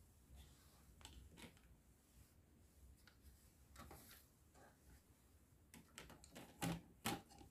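Faint scattered clicks and taps of small plastic toy plates being handled and set down in a plastic toy dish rack, with two louder knocks near the end.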